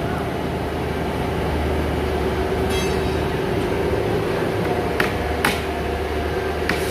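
Steady mechanical hum of a factory hall, with a few sharp hammer blows on a wooden packing crate about five seconds in and near the end.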